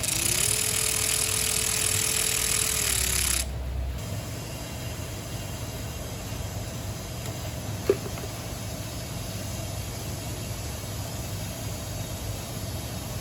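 Air rushing through a small opening with a loud hiss and a whistle that rises, holds steady and falls away after about three seconds. Underneath, the Honda Accord's engine idles steadily, with a single sharp click about eight seconds in.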